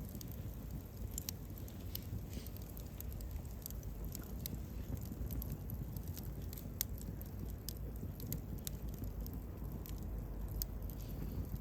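Wood campfire crackling, with irregular sharp pops and snaps over a steady low rumble of burning; one pop a little past the middle is the loudest.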